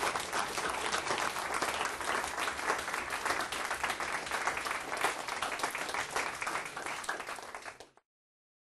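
Audience applauding steadily, a dense patter of many hands clapping, which cuts off abruptly about eight seconds in.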